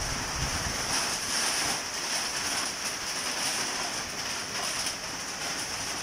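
Heavy rain falling steadily in a strong wind, a dense even hiss. Low wind buffeting on the microphone eases within the first second.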